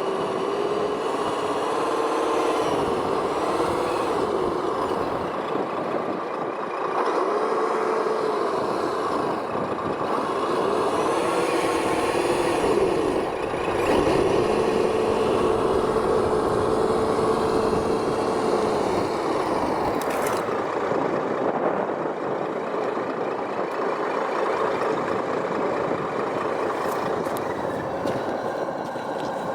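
Electric motors of RC scale construction machines whining, the pitch rising and falling in short swells as they speed up and slow down under load, and held steady for a few seconds near the middle.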